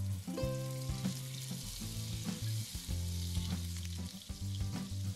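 Butter sizzling as it melts and foams in a hot nonstick frying pan, pushed around with a wooden spatula; the hiss comes in just after the start. Background music plays underneath.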